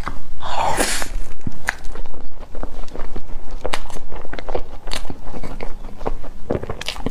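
Close-miked mouth sounds of eating a soft whipped-cream-filled pancake: wet chewing, lip smacks and sticky clicks in quick succession, with one longer, noisier wet sound about half a second in.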